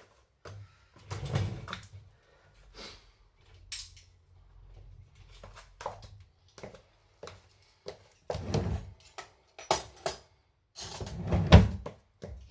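Dishes and kitchenware being knocked and set down, with cupboard doors and drawers opening and closing, as a dishwasher is unloaded and its contents put away. The knocks come irregularly, and the loudest clatters fall in the last few seconds.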